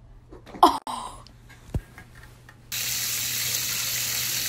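A short cough-like sound and a dull thump, then, a little past halfway, a steady hiss of running water starts abruptly.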